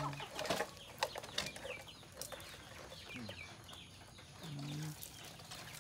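Native chickens feeding, with short low clucks and high chirps from the young birds, plus a few sharp ticks in the first second and a half.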